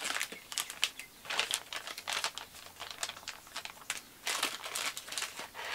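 Clear plastic parts bags crinkling and rustling as they are handled and opened, in irregular crackles, with a busier stretch a little past four seconds in.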